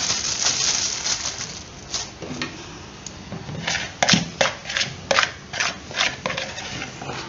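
A plastic bag rustles as bait dough is worked into it, then a quick run of short scrapes as leftover dough is scraped from a plastic bowl.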